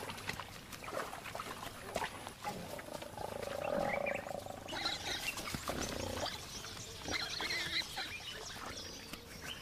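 Wild pigs, giant forest hogs and warthogs, grunting in a series of short calls, with a longer drawn-out call a few seconds in. The calls come as the forest hogs make a threat display to drive the warthogs off the wallow.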